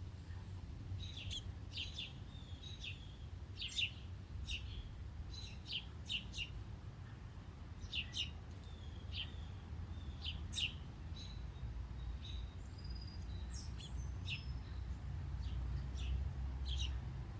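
Small birds chirping: many short, sharp chirps at irregular intervals, over a low, steady background rumble.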